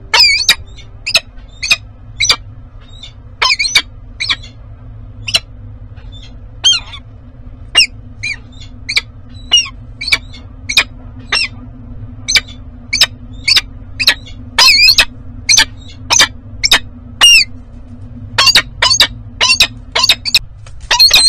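Female peregrine falcon calling: loud, sharp, repeated calls, about one or two a second, coming faster near the end. Courtship calling toward a new tiercel.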